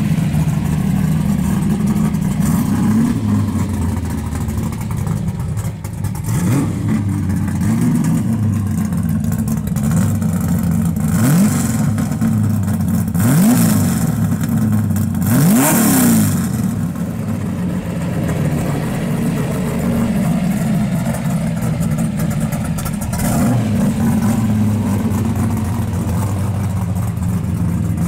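1971 Dodge Dart drag car's 340 cubic-inch stroker small-block V8 running at idle and revved in several short blips, each rising and falling back, the strongest two coming a little past the middle.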